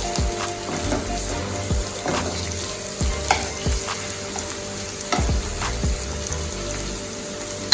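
Chopped onion, garlic, scallion and thyme sizzling in hot cooking oil in a pan. A spoon stirs them with repeated scraping strokes against the pan.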